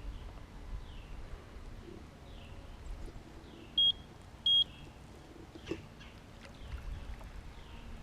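Birds calling with short, falling chirps repeated over and over, over a low outdoor rumble. About four seconds in, two short, loud electronic beeps a little over half a second apart.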